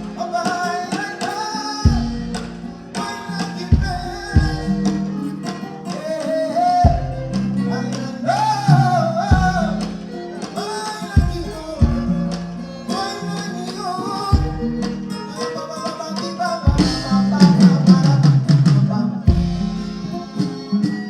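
Live band music: a singing voice over plucked guitar, with deep bass notes landing every one to three seconds.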